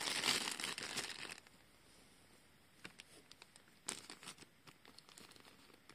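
Thin plastic surprise bag crinkling as it is handled, loudest in the first second and a half, then scattered faint crackles.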